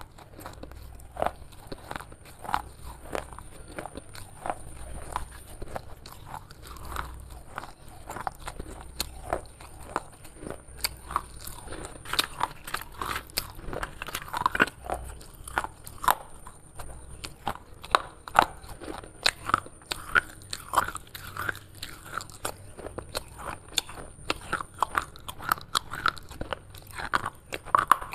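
Broken baked clay pot shards being bitten and chewed close to the microphone: a long run of irregular crisp crunches and gritty chewing, coming more often in the second half.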